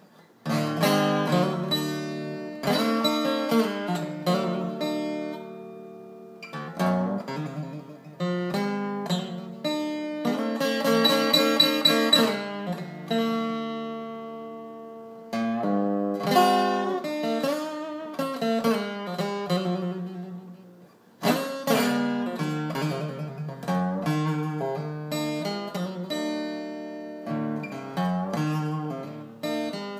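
A 1964 Gibson J-45 acoustic guitar played solo: phrases of picked notes and strummed chords, each ringing out and fading before a strong new attack starts the next phrase.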